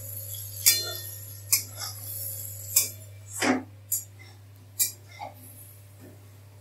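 Steel spatula clinking and scraping against a steel kadai as prawns are stirred in it: a run of sharp clinks at irregular intervals, with one longer scrape about halfway through.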